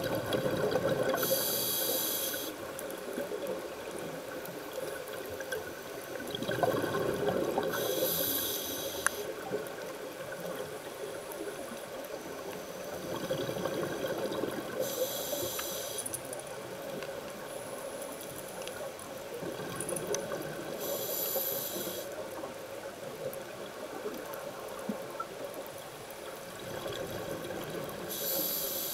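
Scuba regulator breathing heard underwater: a bubbling rumble of exhaled air alternating with a short hissing inhalation, in a slow steady rhythm of about one breath every six to seven seconds.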